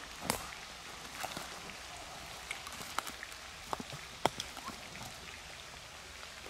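Scattered, irregular sharp clicks and ticks over a faint steady outdoor background.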